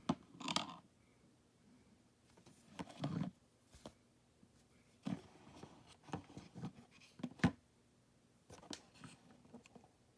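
Scattered light clicks and knocks from a small resin scale model being handled and moved, at irregular intervals, the sharpest about two-thirds of the way through.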